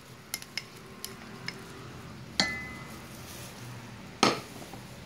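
Kitchenware being handled: a few light clicks, then two louder clinks and knocks, the first, about two seconds in, leaving a short ringing tone.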